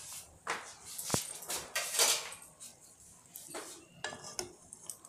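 A metal spoon scraping and clinking against the inside of a metal saucepan as boiled tomatoes are scooped out of the water: a handful of separate knocks and scrapes, one ringing clink about a second in.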